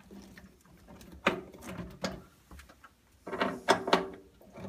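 Hands working a nut driver on the quarter-inch nuts that hold a freezer drawer's door to its slides: scattered clicks and knocks of metal and plastic, loudest in a short cluster about three and a half seconds in.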